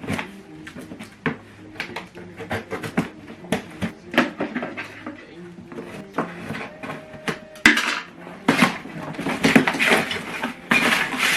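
Hard plastic toy-vacuum parts and their packaging being handled: a string of light clacks and knocks, with denser rustling from about eight seconds in.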